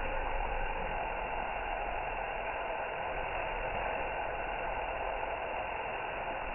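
Orbital sander running steadily, wet sanding an aluminium plate with 180-grit paper.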